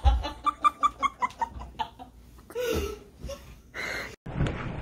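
A woman giggling: a quick run of short laughing bursts, about four or five a second, that fades out over the first couple of seconds, followed by a few softer breaths or vocal sounds.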